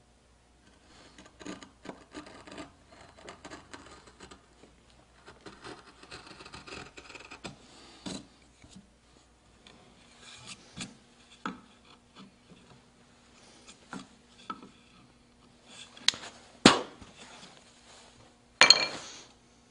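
Hand carving gouge cutting into wood in short scraping strokes with small clicks, as flutes of a carved shell are pared. Later come scattered clicks, then two sharp knocks about two seconds apart near the end, the loudest sounds.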